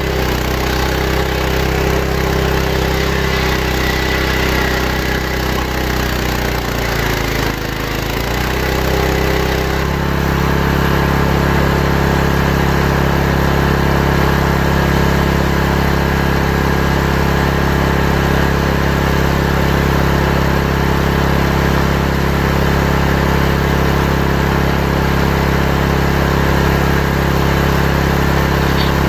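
Large circular-blade table saw ripping santol wood into boards. Its pitch sags as the blade bites into a cut near the start, and again about eight seconds in. From about ten seconds on the saw runs steadily.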